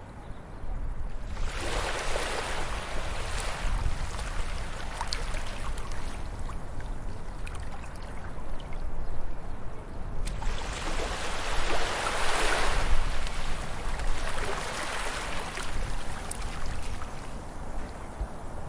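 Natural water rushing in a continuous wash with a low rumble underneath, swelling louder three times.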